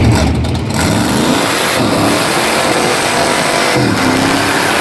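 Chrysler 440 big-block V8 in a PT Cruiser drag car revving hard through a burnout, the engine note rising and falling over the rush of the rear tyre spinning on the pavement.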